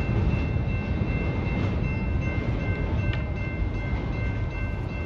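Freight train rolling past with a steady low rumble from its wheels and cars, and several steady high-pitched tones held over it.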